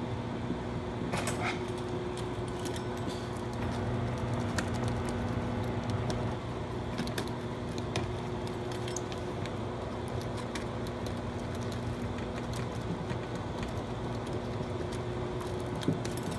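A steady low hum runs throughout, with small clicks and light rattles scattered through it.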